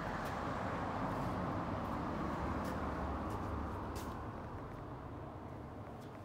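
Road traffic: a passing vehicle's engine and tyre noise, fading away over the last couple of seconds, with a few light clicks.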